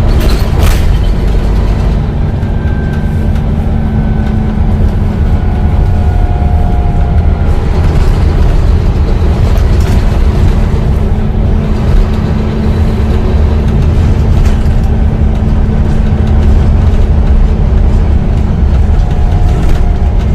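Volvo B9TL bus's diesel engine running steadily, a continuous deep rumble with a steady low hum.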